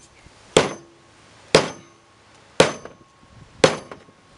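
Sledgehammer blows driving a wooden finger joint together: four heavy strikes about a second apart, each dying away quickly.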